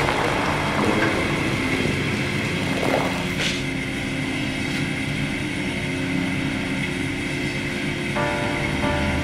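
Steady machinery drone in a fishing vessel's factory below deck, from the boat's engines and processing equipment, with a brief clatter about three and a half seconds in.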